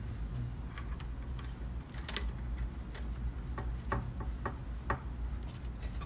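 Irregular light clicks and taps of an oscilloscope's plastic parts being handled and fitted together: the rubber button keypad and the plastic front panel set in place, with a quick run of clicks about four seconds in. A low steady hum lies underneath.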